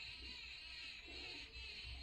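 Faint room tone: a low hum and a steady hiss, with no music or speech.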